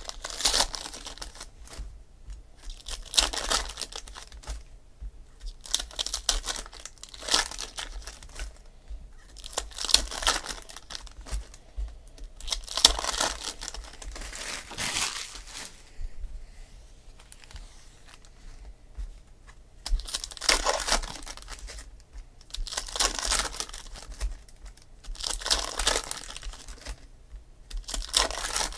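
Foil trading-card pack wrappers being torn open and crinkled by hand, in repeated crackly bursts a couple of seconds apart.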